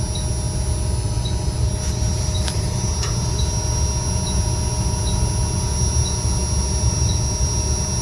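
Steady drone of running HVAC machinery in a mechanical room: a low rumble under a few steady high-pitched whine tones, with a faint short chirp about once a second.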